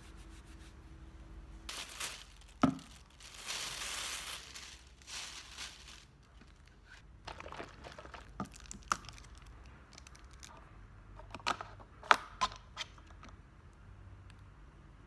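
Plastic food wrapping and a paper tissue being handled: crinkling and rustling, with scattered sharp clicks and knocks, the loudest about two and a half seconds in and again about twelve seconds in.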